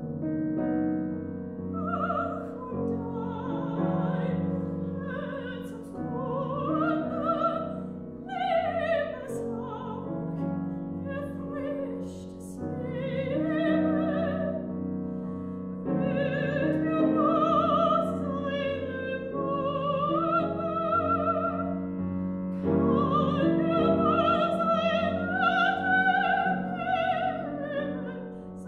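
A classically trained soprano singing a German art song with vibrato, accompanied by a grand piano. The voice comes in about a second and a half in and sings several phrases, with short breaths between them while the piano carries on.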